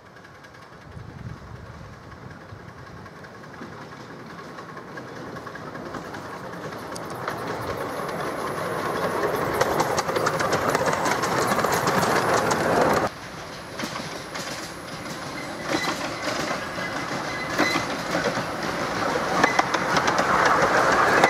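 Double-headed miniature coal-fired steam train drawing closer, its wheels clicking over the rail joints and growing steadily louder. The sound cuts off abruptly about 13 seconds in, then builds again as the train passes close by near the end.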